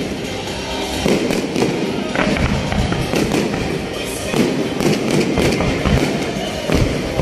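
Fireworks display: a rapid run of bangs from aerial shells bursting, one every half second or so, over continuous crackling.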